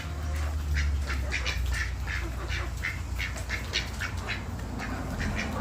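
Chickens clucking in a steady run of short, sharp clucks, about two to three a second, over a low steady rumble.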